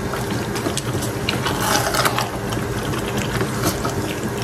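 Wooden spatula stirring chicken and potatoes in a steel pot, with scrapes and light knocks against the metal, loudest about a second and a half to two seconds in. Under it runs a steady mechanical hum.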